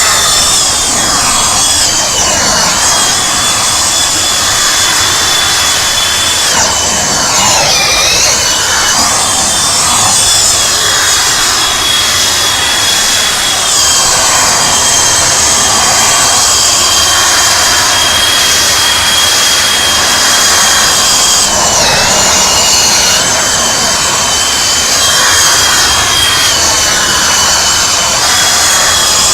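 Radio-controlled F-15 Eagle model jet's engines whining steadily at a high pitch in flight. The pitch dips briefly a few times, most deeply about eight seconds in and again about 22 seconds in, as the throttle is eased and reopened.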